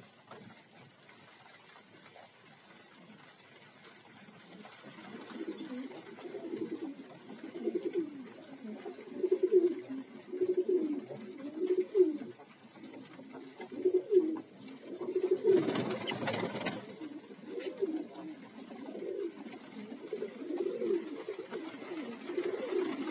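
A loft full of domestic pigeons, fantails among them, cooing over and over in low, rolling calls that rise and fall. The cooing builds up after a few quieter seconds. About two-thirds of the way through there is a brief rush of noise.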